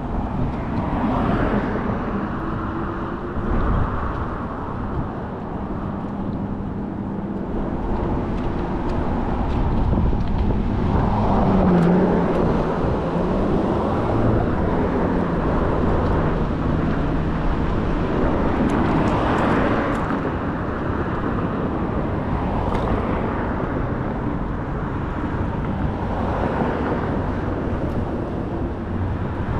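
Road traffic with a steady low rumble of wind on the microphone; several vehicles swell and fade as they pass.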